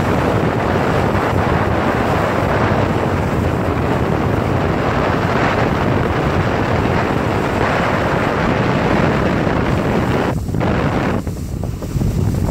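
Wind buffeting the microphone over the steady run of a tow boat's engine and the rush of its wake, the wind noise dropping briefly about ten seconds in.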